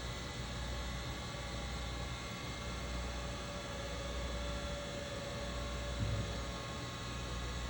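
Surface grinder's wheel spinning without cutting: a steady hum with several constant tones, as the wheel is lowered slowly toward the workpiece. A short low thump about six seconds in.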